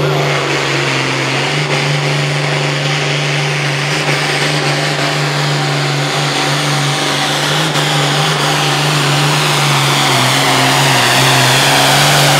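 Turbocharged International 1066 diesel pulling tractor at full throttle under load, dragging the pulling sled: the engine holds a steady high pitch with a heavy rasping exhaust, growing a little louder near the end.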